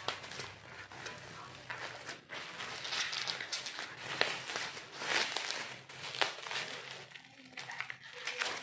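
Packaging rustling and crinkling as it is unwrapped by hand, with many small crackles and clicks, busiest in the middle.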